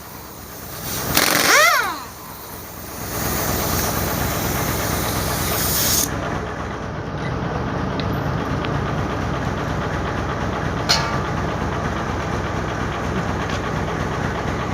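Steady mechanical rumble with a hiss over the first six seconds, and one sharp click about eleven seconds in.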